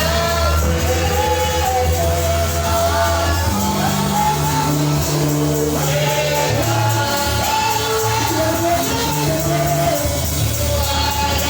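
Worship music: a voice singing a melody over a band with a steady, held bass line.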